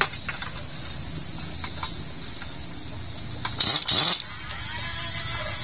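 Air impact wrench firing two short bursts about four seconds in, driving in the spring bolts of a Bajaj CT100 clutch pressure plate, then winding down. Before the bursts there are a few light metal clicks.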